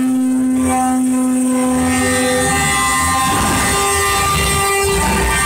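Trucks' air horns blowing long held notes, the pitch changing about halfway through, over the low rumble of diesel truck engines passing.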